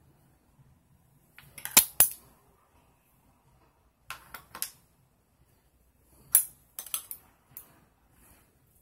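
Sharp clicks and clinks of small metal parts being handled: the metal frame of a pair of Oakley X-Metal sunglasses and a small nose-bridge piece tapping together. Two loud clicks come about two seconds in, a few lighter ones around four seconds, and a quick cluster about six to seven and a half seconds in.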